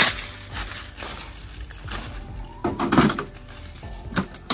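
Plastic milk crate and upturned plastic container knocking as they are set down on dry leaf litter and stood on, with footsteps rustling the dry leaves. The loudest thump comes about three seconds in.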